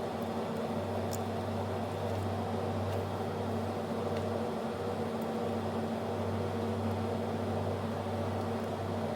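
A steady mechanical hum, like a small fan or motor running, with a few faint ticks.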